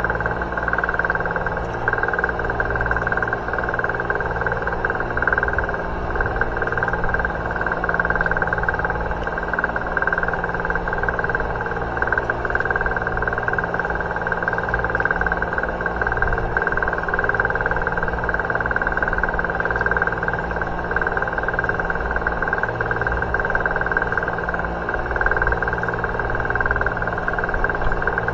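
Boat engine running steadily at a constant speed: a continuous drone with no change in pitch.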